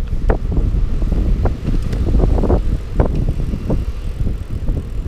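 Pinnacle Neon 4 hybrid bike rolling along a tarmac road, heard as a constant low rumble with irregular clicks and knocks as the bike jolts over the surface.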